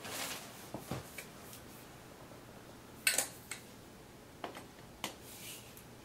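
Clicks and knocks of a Philips Marathon vacuum cleaner's plastic hose handle and metal extension tube being handled and pushed together, with the vacuum switched off. The loudest is a sharp double click about three seconds in, with a rustle at the start and a few lighter single clicks around it.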